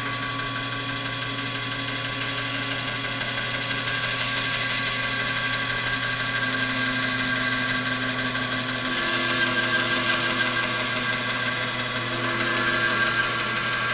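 Rikon bandsaw running and cutting into a hardwood board: a steady motor hum with the high hiss of the blade in the wood. The sound changes about nine seconds in and again near the end.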